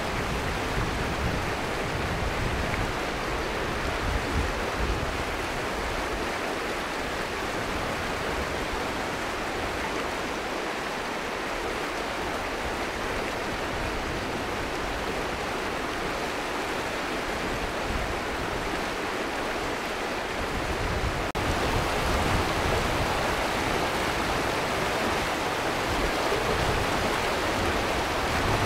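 River water running steadily over stones, a continuous rushing hiss that steps up a little in loudness about three-quarters of the way in.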